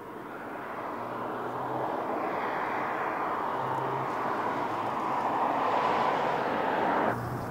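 Mercedes-Benz GLC SUV driving past: tyre and engine noise grows steadily louder as the car approaches, then cuts off abruptly near the end.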